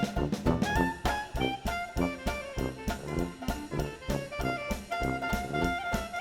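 Upbeat jazzy background music with brass melody lines over a steady drum beat.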